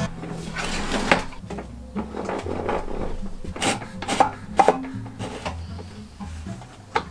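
A thin strip of wood sliding and rubbing on a table saw's metal table and knocking against the rip fence, with several sharp taps, three of them close together in the middle.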